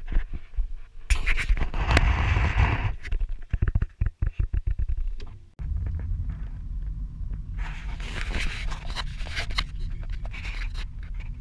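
Scraping and rubbing of a camera being handled at close range inside a car, with a rapid run of clicks that dies away. About halfway in, a steady low car engine sound starts and carries on under more handling scrapes near the end.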